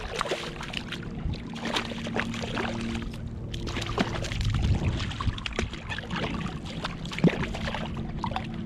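Shallow water splashing and sloshing as a small hooked redfish thrashes at the surface and a hand reaches into the water for it, in a run of short sharp splashes; one sharp splash or knock near the end is the loudest. A steady low hum runs underneath.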